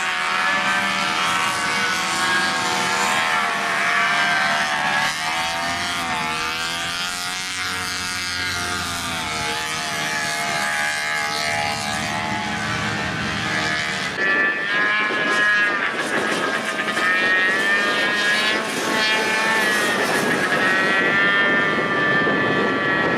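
Several 6x6 amphibious ATVs racing on a dirt track, their small engines revving up and down, the pitch rising and falling as they go round.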